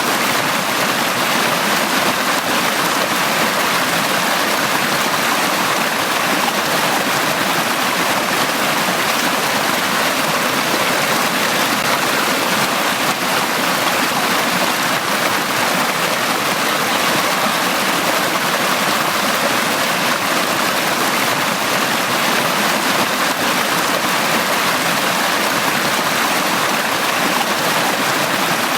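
Valley stream flowing, a steady, even rush of water with no breaks or changes.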